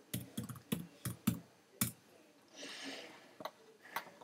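Computer keyboard keys and mouse buttons clicking: a quick run of about eight sharp clicks in the first two seconds, then a few single clicks near the end. A short soft hiss about two and a half seconds in.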